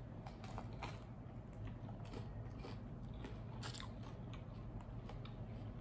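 A bite into sourdough bread topped with salad, then close-mouthed chewing: a run of small crisp crunches from the crust, the loudest about three and a half seconds in.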